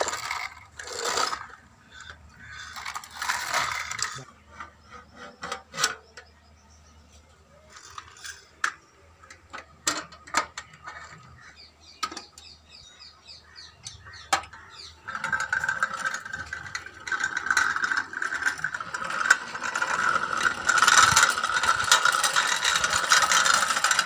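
Plastic toy construction vehicles and a homemade toy tractor being handled, with scattered clicks and knocks. From about fifteen seconds in there is a louder continuous plastic rattling.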